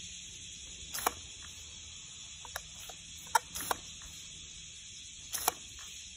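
Garden hose spraying a thin stream of water with a steady hiss, and a few short, sharp clicks and taps over it.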